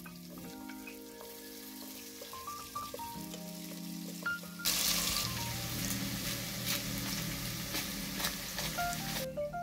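Chopped onion and garlic sizzling as they sauté in a little oil in a nonstick pot. The sizzle starts suddenly about halfway through and cuts off just before the end. Light background music with mallet-like notes plays throughout.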